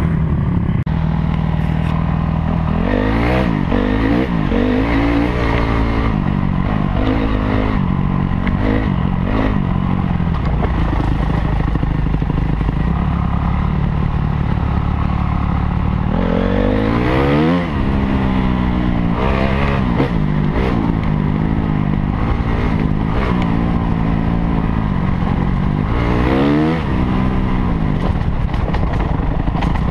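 Honda CRF250R's 250cc single-cylinder four-stroke engine revving hard as the dirt bike accelerates and shifts up, its pitch climbing and dropping again and again, most sharply about three seconds in, around seventeen seconds and near twenty-six seconds.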